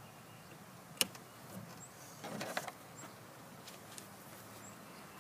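Small handling sounds of a mini bungee cord being hooked onto a plastic kayak seat: one sharp click of the metal hook about a second in, then a short rattle of clicks and rubbing around two and a half seconds, with a few faint ticks in between.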